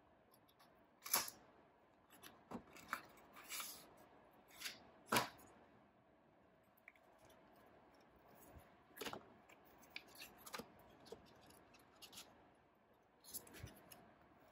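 An Apple AirTag's paper and cardboard packaging being torn open and unfolded: a run of separate short rips, scrapes and rustles. The sharpest come about a second in and about five seconds in, with softer paper handling later.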